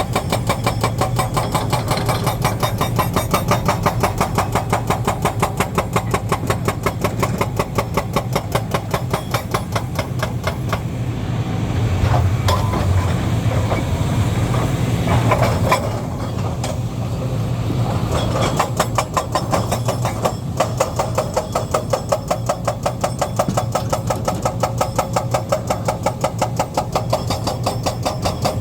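Heavy diesel engine of construction machinery running with a fast, even pulse. For several seconds in the middle the pulse blurs into a denser, slightly louder sound before settling back.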